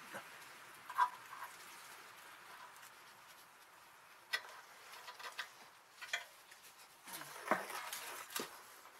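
Scattered light clicks, taps and rustling from hands and a tool working at a car's exhaust pipe from underneath, with a denser stretch of scraping and rustling near the end.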